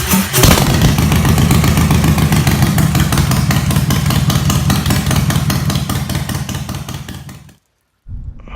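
Harley-Davidson Sportster Iron 883's air-cooled V-twin engine running loud and steady, with a brief louder burst about half a second in. It cuts off abruptly near the end.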